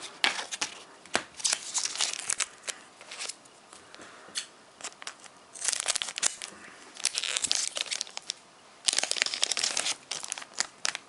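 Foil Pokémon booster pack wrapper crinkling and tearing as packs of trading cards are handled and opened, in several bursts of rustling with short quieter gaps between.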